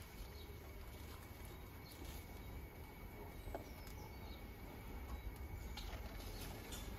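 Faint outdoor ambience: a low wind rumble with distant bird calls, and a few light clicks near the end as hand-picked cherries drop into a plastic bucket.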